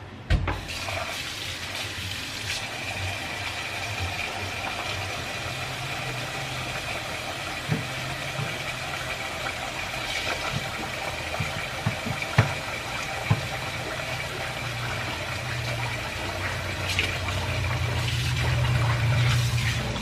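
Kitchen faucet running into a stainless steel bowl of rice as the rice is rinsed by hand. The water comes on suddenly about half a second in and runs steadily, with a few sharp knocks in the middle.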